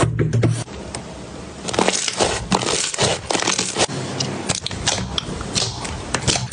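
Dense, irregular crunching and crackling clicks, as of something brittle being crushed.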